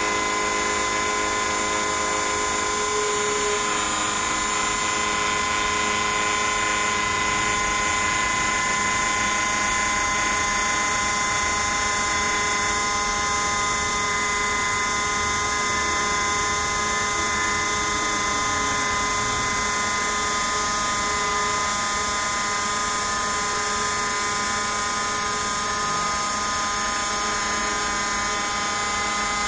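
Small CNC router's spindle motor running at speed with a steady whine of several tones while its bit carves a white foam block. The whine changes slightly about twelve seconds in.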